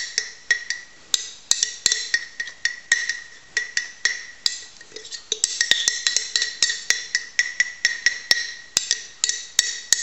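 Metal spoon clinking and scraping against the inside of a glass jar, about three sharp clinks a second, each with a short ring, as the last of the sourdough starter is scraped out into a bowl.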